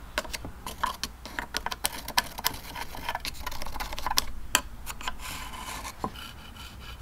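A pencil tracing around a clutch pressure plate laid on a laminated spruce board: a run of small clicks and taps as the pencil point and the plate knock and scrape against each other, then a short rubbing scrape about five seconds in and one last sharp tap.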